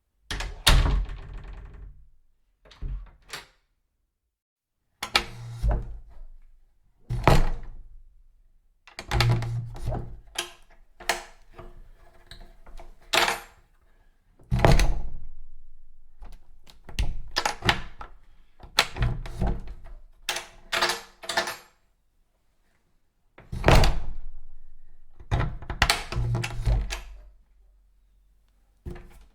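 A series of door closes and thuds, some single and some in quick clusters of two to four, each with a short ringing tail.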